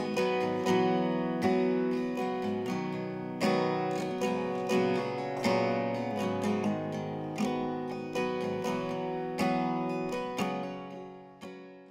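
Acoustic guitar strumming chords, a strum about once a second with the notes ringing between, dying away near the end.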